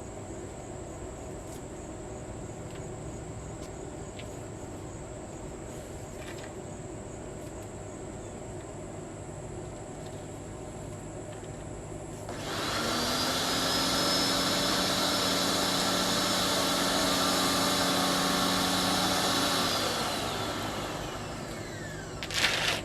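An electric motor-driven machine switches on about halfway through, runs steadily with a whine for about seven seconds, then is switched off and coasts down with falling pitch. A short clatter follows near the end.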